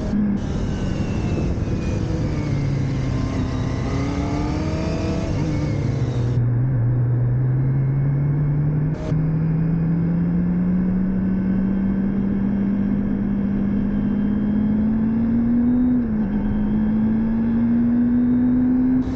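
Motorcycle engine heard on board while riding. The revs fall from about three to six seconds in, then climb steadily, with a brief drop about sixteen seconds in, as at a gear change, before rising again. Wind rushes over the microphone for the first six seconds.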